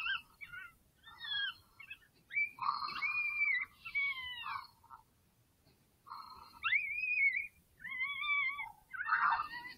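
Predator call sounding a string of short, high, wavering squeals that rise and fall in pitch, with a brief pause about halfway through: an animal distress cry used to draw in a coyote.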